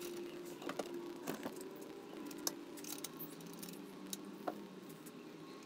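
Small metal fittings being handled and fitted on a lawn edger's handlebar: scattered light metallic clicks and rattles at irregular moments, over a steady background hum.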